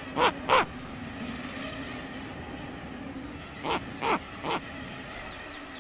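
Snowy owl calling: two short calls, each falling in pitch, then a run of three more a few seconds later, over a faint steady background.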